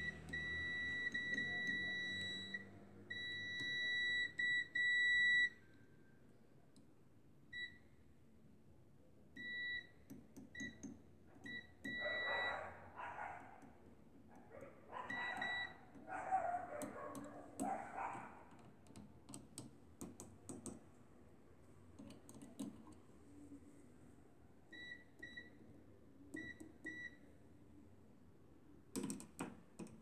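Multimeter continuity beeper sounding as the test probe touches the microwave oven's ground points: a long steady high beep, then broken beeps and short chirps as contact makes and breaks, the signal that the ground path is continuous. Scraping of the probe against the metal and a few clicks come between the beeps.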